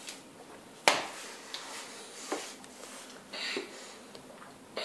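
Milk being gulped straight from a plastic bottle: faint swallows and small handling sounds, with one sharper click about a second in.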